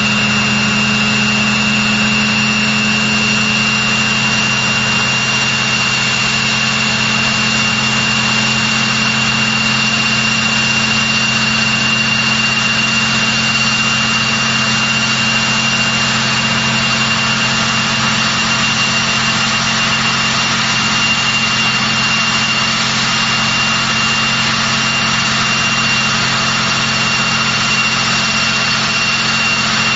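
Rolls-Royce Tyne turboprop engines of a Vickers Vanguard (Merchantman) airliner running steadily: a high steady whine over a low drone and rushing noise.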